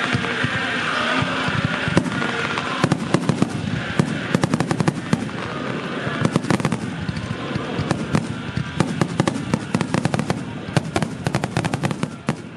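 Fireworks crackling in rapid, irregular sharp pops, many a second, growing denser toward the end. Music fades out under them during the first two seconds.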